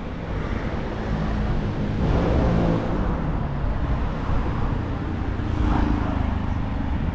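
City road traffic: cars running past, swelling as one passes about two seconds in and again near the end.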